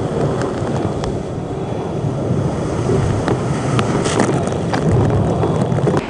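Sea water rushing and splashing past an ocean racing yacht under sail at speed, with wind buffeting the microphone and a few sharp splashes.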